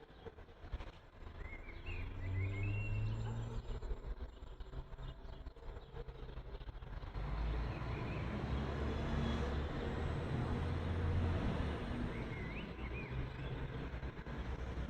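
Outdoor ambience: a steady low rumble that grows louder about halfway through, with a few short bird chirps near the start and again near the end.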